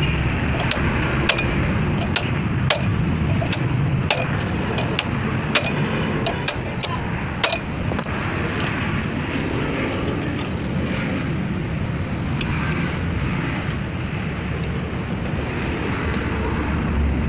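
Hammer striking metal at a cut exhaust pipe end, irregular sharp knocks about one to two a second that stop about seven and a half seconds in, over a steady low rumble.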